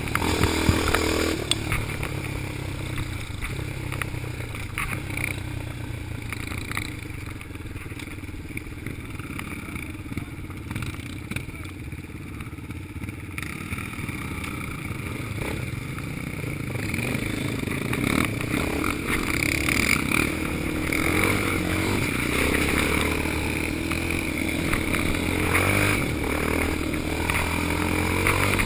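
Yamaha Raptor quad's single-cylinder engine heard from the rider's seat. It slows and drops to a low, quieter run for the first half, then revs up and pulls away louder through the second half. Other quads and dirt bikes are running close by.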